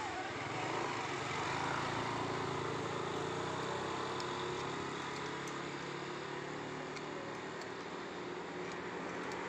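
Street traffic running past: the steady hum of motorcycle and car engines going by on the road.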